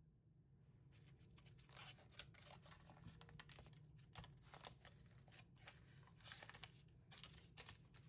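Foil-backed paper butter wrapper being peeled open and flattened by hand: faint, irregular crinkling and crackling that starts about a second in.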